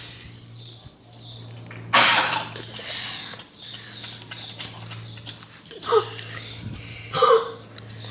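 Boxer dog coughing: three sudden hacking coughs, about two seconds in, near six seconds and again a second later, the first the loudest.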